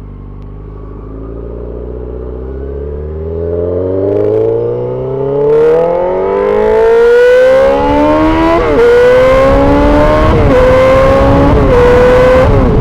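Yamaha R6 motorcycle's inline-four engine accelerating hard: its pitch climbs steadily for about eight seconds, then it shifts up several times in quick succession, each shift a short dip in pitch. Wind noise on the microphone grows louder as speed builds.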